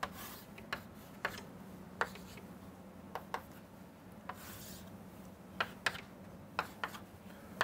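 Chalk on a chalkboard: faint, scattered taps and short scratching strokes as straight lines are drawn, over a steady low hum.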